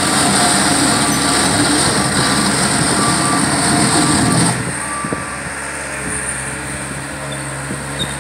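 Caterpillar compact track loader's diesel engine and tracks running as it pushes and spreads sand with its bucket. The sound drops to a lower level about four and a half seconds in, with a brief knock near the end.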